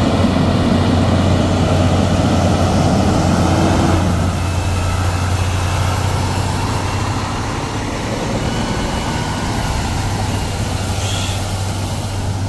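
Paccar PX-9 8.9 L six-cylinder diesel of a Peterbilt 348 water truck running steadily as the truck drives, with the hiss of its front and rear water sprayers. The sound eases a little about four seconds in.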